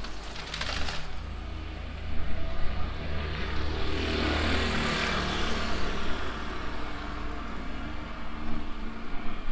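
A vehicle passing on a wet brick street: its tyre hiss swells, peaks and fades over a few seconds in the middle, over a steady low rumble.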